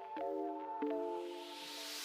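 Background music: sustained chord notes that move to new pitches twice, with a rising noise sweep building toward the end.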